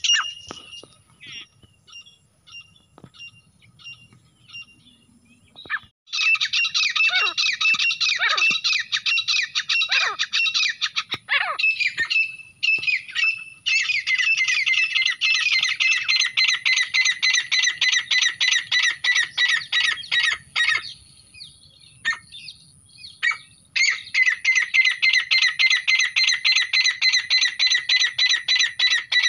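Grey francolins calling. A few short, spaced notes fade out over the first few seconds, then come three long bouts of loud, fast, repeated calls with short pauses between them.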